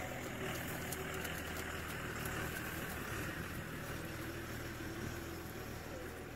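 A steady low engine hum, like a vehicle idling, runs throughout.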